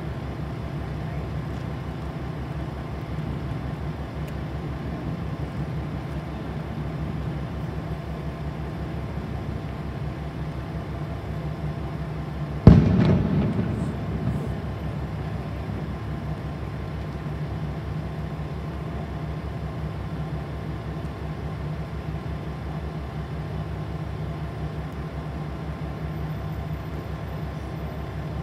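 KiHa 40 diesel railcar's engine idling with a steady, even throb. About halfway through comes one sudden loud bang that dies away over a second or so, followed by a smaller knock.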